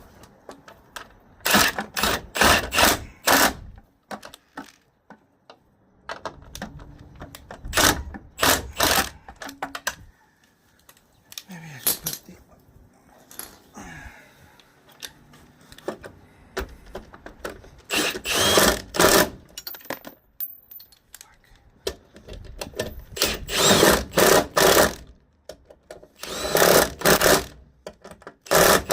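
Power tool, a drill or impact driver, run in short bursts about five times, each burst lasting a second or two.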